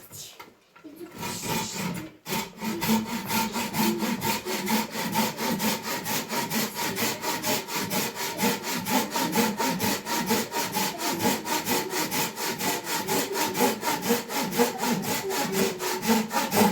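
Rapid, even back-and-forth rasping strokes, about four a second, starting about two seconds in and stopping at the very end.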